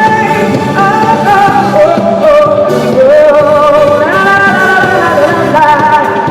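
A male voice singing long, wavering held notes over a pop backing track.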